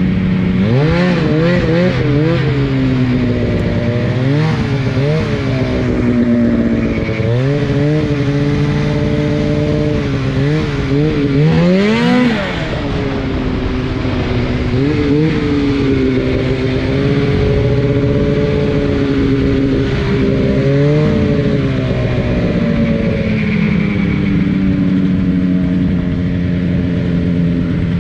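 Ski-Doo Summit 800 snowmobile's two-stroke engine under way, revving up and down in quick swells as the throttle is worked, with a sharp rev about twelve seconds in, then running steadier with only mild rises.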